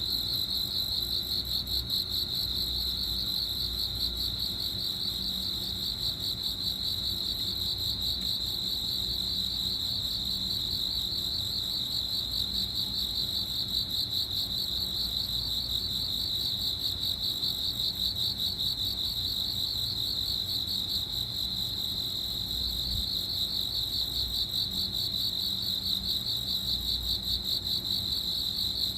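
Crickets chirping in a steady, rapid trill that goes on without a break.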